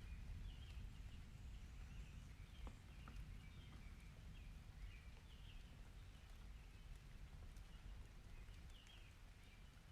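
Faint bird chirps, short calls repeated every second or so, over a low steady rumble.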